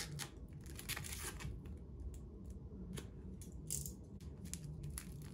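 Clear plastic packaging crinkling and rustling as it is handled, with scattered light clicks and taps.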